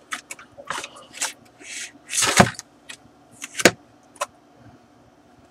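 Cardboard box being handled as its contents are slid out: scraping and rustling with a few sharp taps, the loudest scrape about two seconds in and a sharp click a little later, then it goes quiet.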